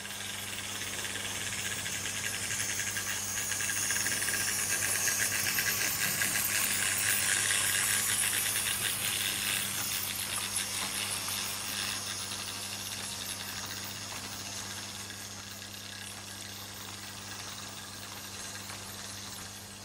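Märklin H0 model train running on stamped-steel M-track: a dense metallic rattle of fast wheel clicks that grows louder as it passes close by, then fades away. A steady low hum runs underneath.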